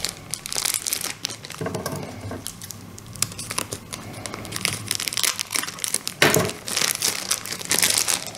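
Thin clear plastic bag crinkling and rustling as it is pulled open around a potted orchid, with a louder burst of crackling about six seconds in.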